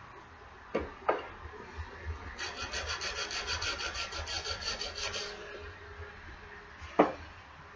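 Axe blade being rubbed back and forth against a sharpening abrasive, a quick even scraping at about five strokes a second that runs for about three seconds. Two knocks come before the strokes, and a louder knock follows near the end.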